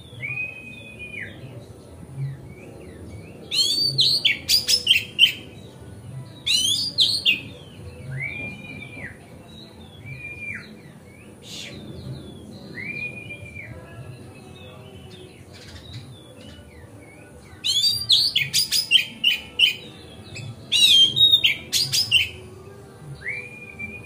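Oriental magpie-robin singing freely in full song. Clear drawn-out whistles come every few seconds. They are broken by loud runs of rapid, varied notes, first about four seconds in and again from about eighteen seconds in.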